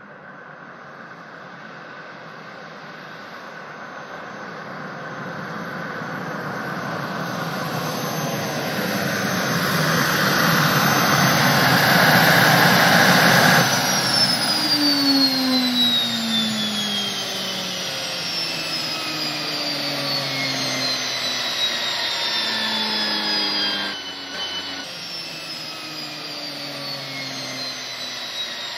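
Gas turbine of a 1968 Lotus Type 56 turbine Indy car whining as the car approaches, growing steadily louder. About halfway through, the turbine is cut and winds down, its whine falling steadily in pitch through several tones.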